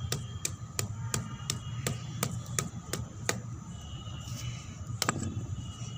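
A hand-held stone knocking on a dried badam fruit's hard shell on a concrete block to crack it, about three sharp knocks a second, stopping a little over three seconds in, with one more knock about five seconds in.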